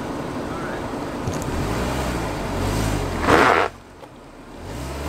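Lifted Volkswagen Jetta MK4 wagon's engine revving under load while trying to climb a muddy hill. It builds to a loud peak about three seconds in, falls off sharply, then builds again near the end.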